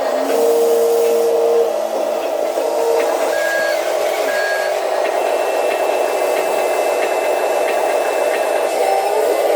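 Electric drive motors and gearboxes of HUINA RC construction models whining steadily, their pitch rising and falling as the motors speed up and slow down. A few short high beeps sound in the middle.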